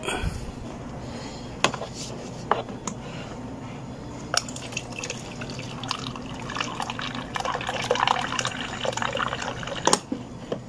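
Water pouring from the hot-water tap of a Nova water dispenser into a plastic pitcher. The pour starts about four seconds in and stops near the end with a click as the tap lever is let go. A knock and a few handling clicks come before the pour.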